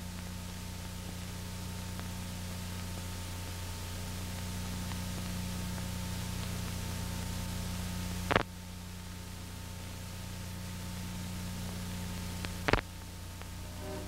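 Steady hiss and low hum of an old analog recording's blank soundtrack, broken by two sharp clicks, one about eight seconds in and one near the end.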